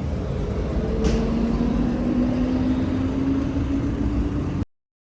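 A vehicle running with a steady low rumble and a whine that slowly rises in pitch as it speeds up, with a click about a second in; the sound cuts off suddenly near the end.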